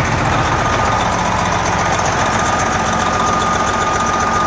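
Swapped-in diesel engine of a Volvo VNL truck running at a steady idle, with a steady high-pitched whine over the even low engine beat.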